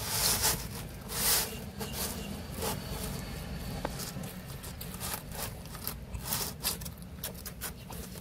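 Close-up handling and eating noises: a slice of pepperoni pizza scraping and rustling as it is lifted off the corrugated liner of its cardboard box, in short irregular scrapes several times a second.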